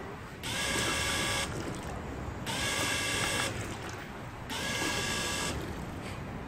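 Small electric pump of a digitally controlled liquid filling machine whining in bursts of about a second, switching on and off sharply every two seconds as the machine dispenses repeated timed doses.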